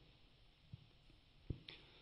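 Near silence: room tone, broken by two faint low thumps, a small one about three-quarters of a second in and a sharper one about a second and a half in.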